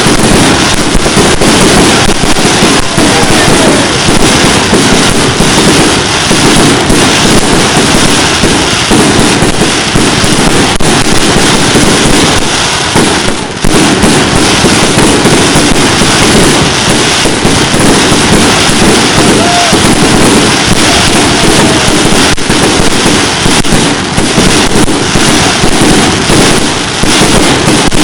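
Fireworks display in a dense, continuous barrage: rapid bangs and pops merge into one loud din, with a brief dip about halfway through.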